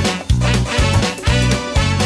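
Instrumental break of an upbeat song: a steady bass-and-drum beat with a melody over it, no singing.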